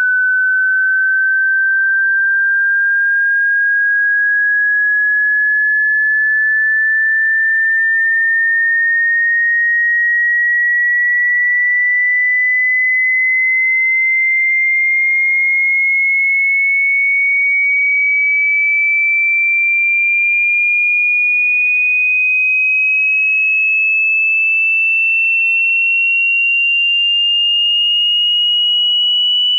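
Hearing-test sine tone: a single pure tone, steady in loudness, rising slowly and evenly in pitch by about an octave.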